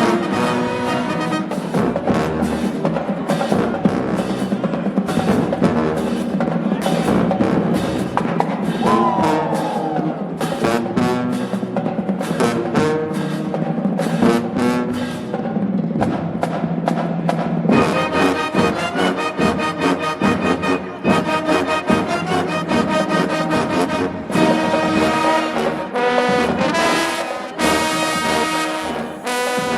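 HBCU marching band playing loudly, with trombones and trumpets over drums. A note slides down in pitch about nine seconds in, and full held brass chords come in from about eighteen seconds in.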